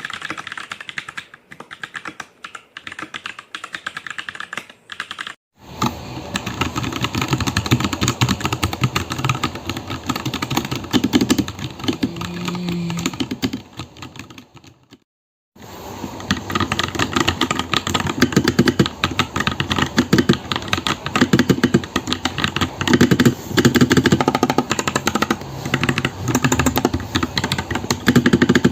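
Rapid typing on a mechanical keyboard fitted with Akko V3 switches: a dense stream of key clacks. It starts with a few seconds of sparser keystrokes and runs as two long fast stretches, broken by a brief silence about halfway.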